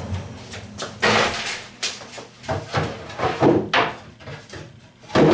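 Knocks, scrapes and thumps of a wooden mobile scroll saw stand being handled and set in place, with the loudest thump near the end.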